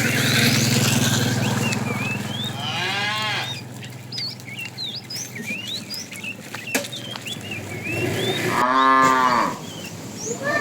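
Cows mooing: a long low moo in the first few seconds, a shorter call about three seconds in, and a loud moo near the end, with birds chirping throughout.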